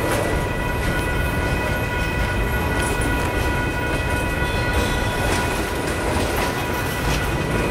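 Freight cars, covered hoppers and then tank cars, rolling past on the rails: a steady rumble of wheels with some clickety-clack from the track, and a steady high whine held over it.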